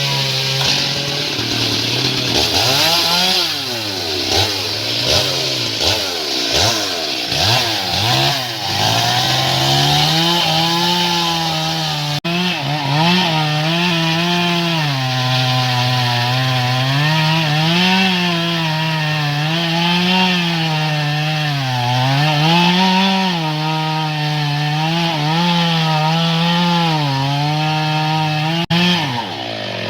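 Stihl MS 382 two-stroke chainsaw cutting into a large teak trunk at high revs. For the first ten seconds the engine pitch swings up and down widely; after that it holds high and sags and recovers about every two seconds as the chain bites.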